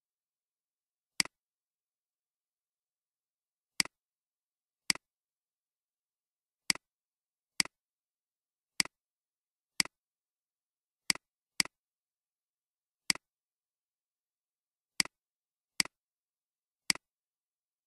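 Computer mouse clicks, single and irregular, about a dozen spaced one to two seconds apart, with dead silence between them.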